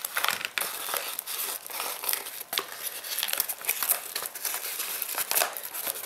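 Crinkling and crackling of a yellow padded mailer envelope being cut open and pulled apart by hand, a dense run of irregular crackles.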